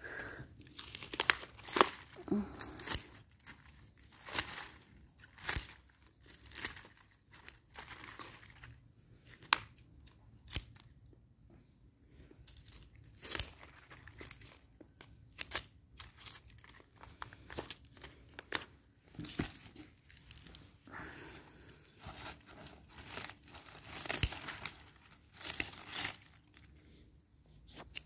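Scissors snipping through fleshy begonia stems, with leaves and stems rustling and crackling as they are handled. Irregular crisp snips and crackles come every second or so.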